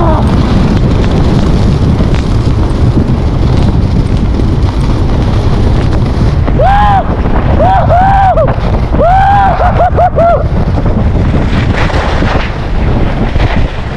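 Wind buffeting the microphone of a body-mounted camera on a skier running fast down a groomed ski trail, a loud, dense rush throughout. About halfway through comes a run of short pitched sounds that rise and fall, several in quick succession.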